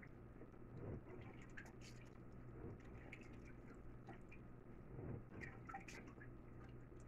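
Near silence: room tone with a faint low hum and a few faint, soft clicks.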